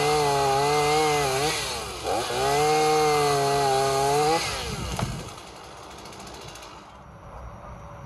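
Chainsaw cutting a tree branch at full throttle, its pitch sagging and recovering as it bites. It eases off briefly about one and a half seconds in, revs through a second cut, then drops away. A sharp crack comes about five seconds in, and after it the sound is much quieter.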